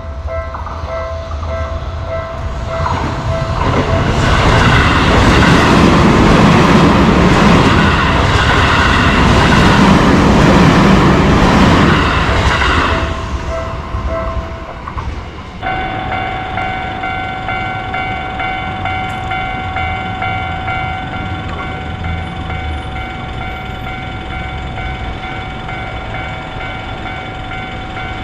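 Japanese railway level-crossing warning bell ringing in a steady repeating pattern while an electric train passes over the crossing, its rush of wheel and running noise loud for about nine seconds before dying away. The bell keeps ringing after the train has gone. About halfway through, the sound jumps to a different crossing, whose bell rings in a steady pattern at a slightly higher pitch.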